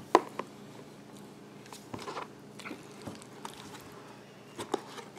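A fork scraping and clicking against a paperboard takeout box as it digs through curly fries covered in cheese sauce and ranch, in a few short, irregular strokes.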